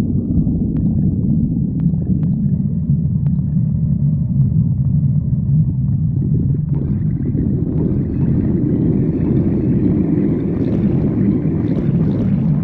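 A person's stomach growling from hunger: a long, unbroken low rumble, with a higher, hissier layer coming in about halfway through.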